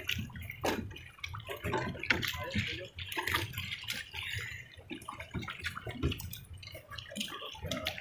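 Lake water splashing and sloshing in quick, irregular strokes as a pedal boat's paddle wheels churn through it.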